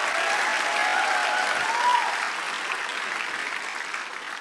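Studio audience applauding after a punchline, the applause dying away over the last couple of seconds.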